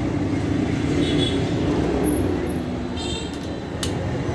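Steady street-traffic rumble, with a short sharp click about four seconds in.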